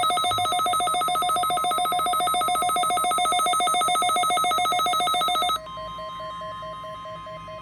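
Weather radio alarm: a loud electronic alert tone pulsing very rapidly, like a ringing bell, which cuts off about five and a half seconds in. A quieter steady tone, the National Weather Service alarm tone, carries on after it.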